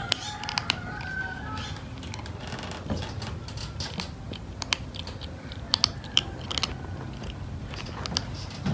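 A kitten crunching dry cat kibble: irregular sharp crunches as it bites and chews.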